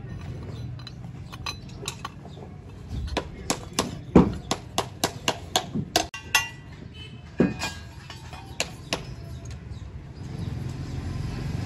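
Sharp metal clinks and knocks, a quick run of about three a second through the middle and a few scattered ones after, over a low steady rumble that grows louder near the end.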